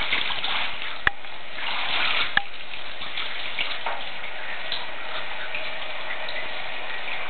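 Water running steadily into a bath, with two sharp clicks about one and two and a half seconds in.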